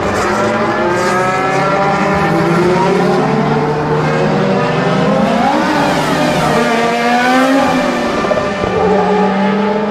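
Racing car engines at high revs, their pitch rising and falling as the cars accelerate and pass, laid in as a sound effect.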